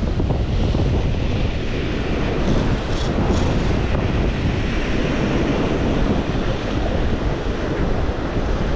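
Ocean surf breaking and washing over the shore rocks, mixed with strong wind buffeting the microphone; a steady, loud rush.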